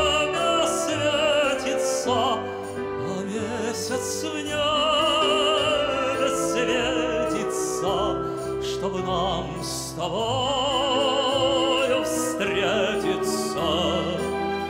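A male singer holding long notes with wide vibrato over orchestral accompaniment, in a classical, operatic style.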